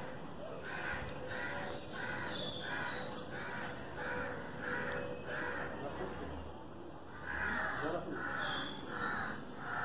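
A bird calling over and over in harsh calls, about two a second. The calls pause for about a second midway and then resume.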